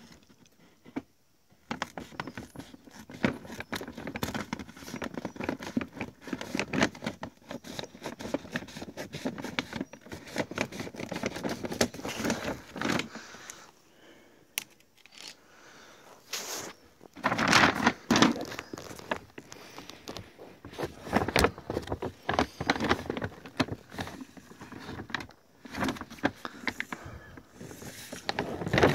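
Scissors cutting open a large plastic sack of dry cat kibble, with steady crinkling and crackling of the stiff plastic bag. The rustling gets louder a little past the middle and again near the end as the sack is pulled open and the kibble inside shifts.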